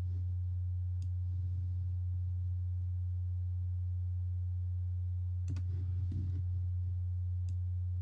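A steady low hum with a few faint clicks, one about a second in and others near the end.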